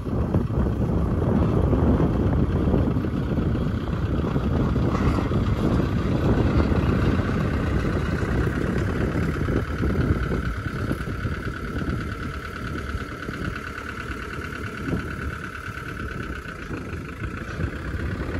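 A light truck's engine running as the truck moves slowly at low speed. A steady whine comes in about ten seconds in, and wind rumbles on the microphone through the first half.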